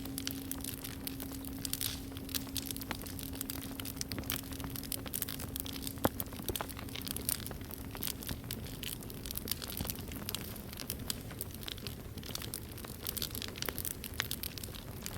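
Campfire crackling and popping with a soft hiss under it. The lingering hum of a struck singing bowl fades away about two-thirds of the way through.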